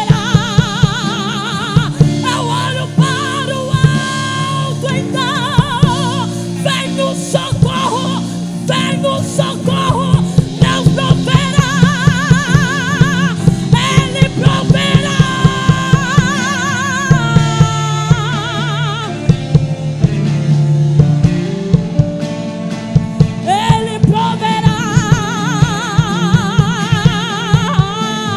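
Live gospel worship music: a band with drum kit playing under a woman's singing, the voice holding long notes with vibrato.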